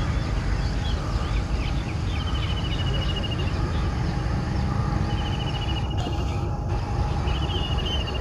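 Diesel locomotive hauling a local passenger train on approach, its engine and wheels giving a steady low rumble. Rapid high trills sound over it three times.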